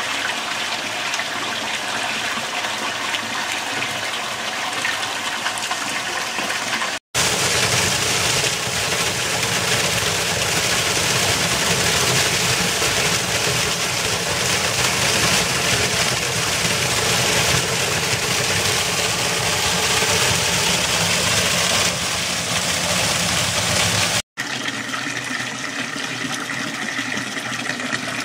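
Spring water running and splashing. First a pipe pours into a pool. After a sudden cut about seven seconds in comes a louder, fuller rush of a small waterfall over rock. After another cut near the end, a thin stream from a fountain spout splashes into a stone basin.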